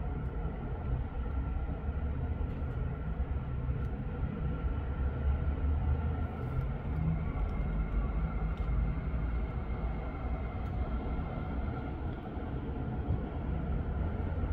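Steady low rumble of road traffic, with heavy diesel lorries, vans and cars moving through a junction.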